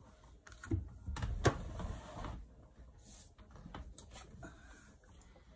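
Tarot deck being handled: a run of card shuffling rustles and clicks in the first couple of seconds, with one sharper tap, then only faint card ticks.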